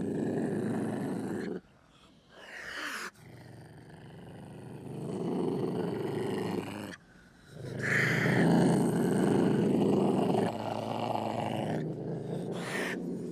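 Designed dinosaur vocalizations for a small tyrannosaur: low growling roars with short higher-pitched calls between them, a short rising one about two seconds in and a brief one near the end. The loudest roar comes a little past halfway and trails off into a rumbling growl.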